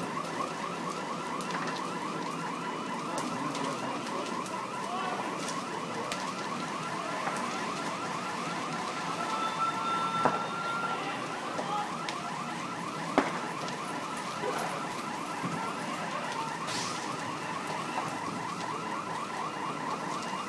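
An electronic alarm sounding a fast, repeating sweeping tone, over the crackle of a large building fire, with two sharp pops, one about ten seconds in and one about thirteen seconds in.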